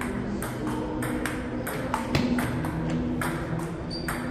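Table tennis rally: the celluloid-type ball clicking off rubber paddles and bouncing on the tabletop, a quick, uneven series of sharp clicks, two or three a second.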